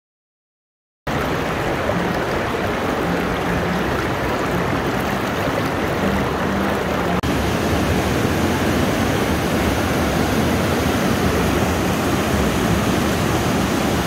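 River water rushing over shallow rock rapids: a steady, loud, even rush that starts abruptly about a second in and shifts slightly about seven seconds in.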